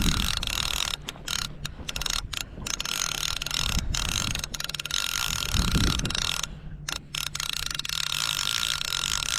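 Fishing reel being cranked, its gears giving a steady ratcheting whirr with a few brief pauses, as a hooked fish is wound up from the bottom.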